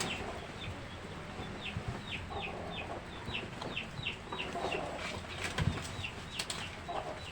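Chicks peeping: a steady run of short, high, falling chirps, two or three a second.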